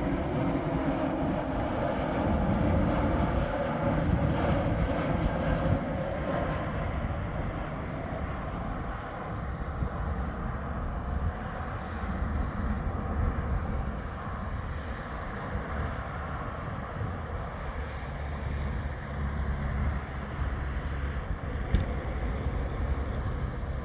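Airbus A320neo jet engines rushing and rumbling, loudest over the first few seconds, then easing off to a lower, steady rumble as the airliner moves away.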